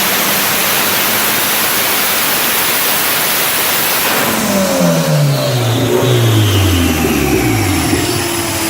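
Turbocharged car engine on a chassis dyno, running loud at full throttle. About four seconds in it lets off, and the engine and rollers wind down in a steadily falling pitch.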